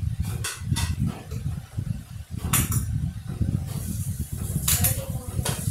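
Kitchen clatter: dishes and utensils knocking and clinking a few times over a steady low rumble.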